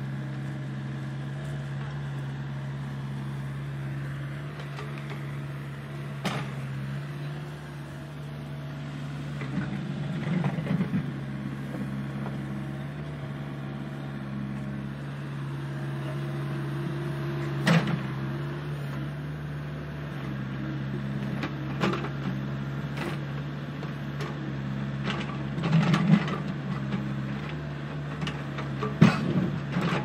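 A remote-control toy excavator's small electric motors and plastic gears whirring steadily as it digs sand, with a few sharp plastic clacks scattered through.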